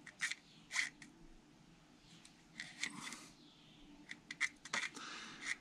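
Faint, irregular small scrapes and ticks of a thin wire being worked through the tiny holes of a brass carburettor emulsion tube, clearing out old gasket glue and dirt that had partly blocked them.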